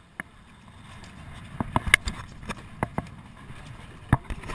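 Irregular knocks and thumps on a fibreglass boat's deck and hull, like footsteps and gear being bumped. A cluster comes about two seconds in and louder ones near the end, over a low steady wash of wind and water.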